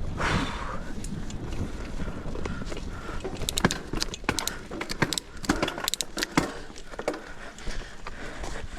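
Mountain bike rattling down a rough forest trail: steady tyre and wind noise, with a run of sharp knocks and clattering from chain and frame over bumps in the middle few seconds.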